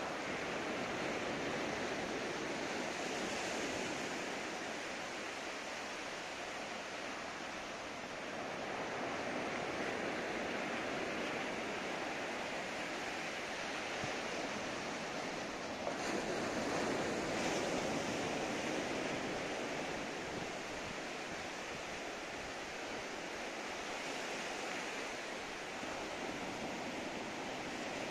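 Surf on a sandy beach: low waves breaking and washing up the sand in a steady rush that swells and eases every few seconds.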